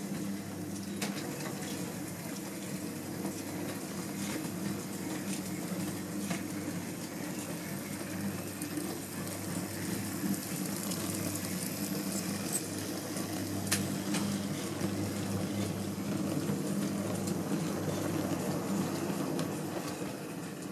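On30 model freight train running along the track behind two model steam locomotives: a steady hum and rumble from the locomotives' motors and the wheels on the rails, with a few sharp clicks from the rail joints.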